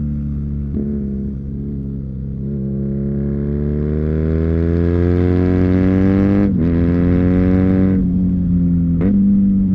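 2019 BMW R nineT's 1170 cc boxer twin running under load through its Akrapovic slip-on exhaust. The revs climb steadily, then drop sharply at an upshift about six and a half seconds in, with two more short breaks near the end.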